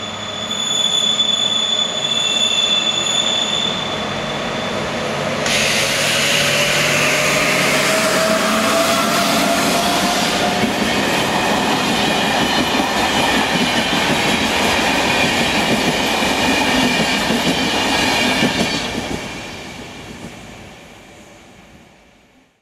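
HŽ 1142-series electric locomotive and its passenger coaches passing close by: a high steady squeal for the first few seconds, then the rumble and wheel clatter of the coaches going past with a slowly rising whine, fading away near the end.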